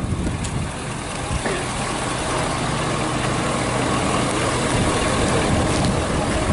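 A fire truck engine idling steadily.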